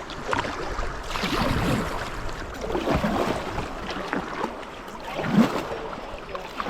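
Kayak on moving river water: irregular splashing and sloshing around the hull, with one sharper, louder hit a little past five seconds in.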